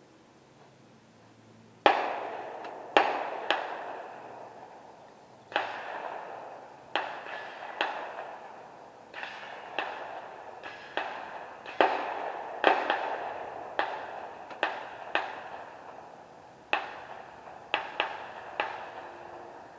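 Gunfire on an outdoor range: a string of about twenty shots at uneven intervals, some less than half a second apart, each followed by an echoing tail. It starts about two seconds in, and the first shot is the loudest.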